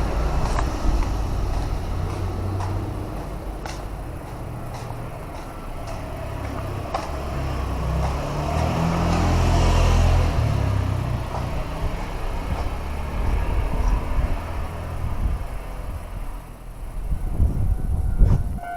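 A vehicle's low rumble passing close by, building to its loudest about ten seconds in and then fading.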